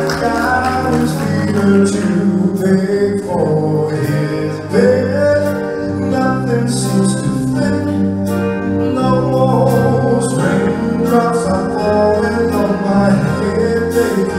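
Male singer singing live into a microphone, backed by a band with keyboards over steady bass notes.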